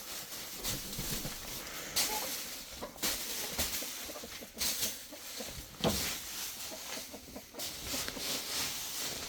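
Wood shavings being spread and stirred by hand over a hen house floor: irregular rustling and scraping with a few short knocks.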